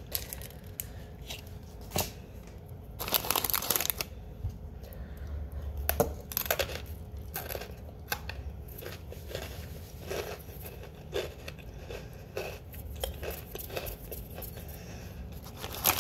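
Plastic snack wrapper crinkling and tearing open, loudest about three to four seconds in. Then comes a run of small crisp crunches as crunchy stick crackers are chewed.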